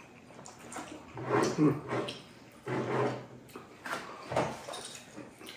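Men tasting olives, with two short, steady closed-mouth "mmm" hums about a second apart and wet mouth clicks and smacks around them.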